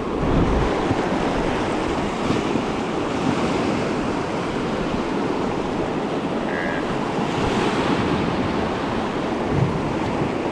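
Salmon River rushing in a steady wash around a raft at high spring flow (about 47,000 CFS).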